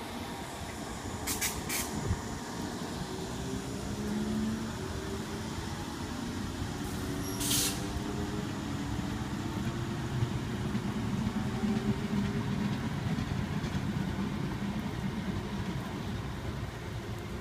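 Southern Class 455 electric multiple unit pulling away, its motor whine rising slowly in pitch as it gathers speed. Two short, sharp hisses of air come about a second and a half in and again about seven seconds in.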